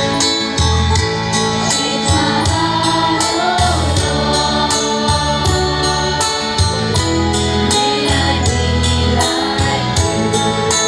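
Hymn music: a choir singing over instrumental backing, with a bass line and a steady beat.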